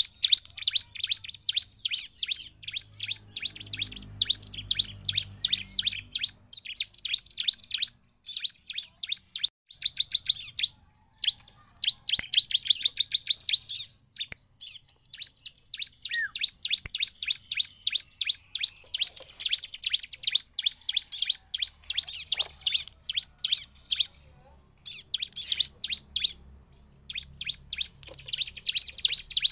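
Bar-winged prinia (ciblek) singing: long runs of rapid, high-pitched chirps repeated several times a second, broken by a few short pauses.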